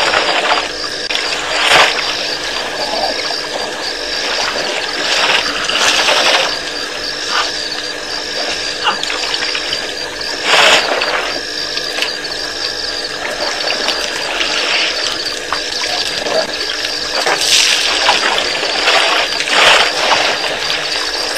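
Elephants drinking at a waterhole, with splashing and sloshing water sounds every few seconds as trunks draw and spray water. Behind it, a steady high chirping repeats about once a second.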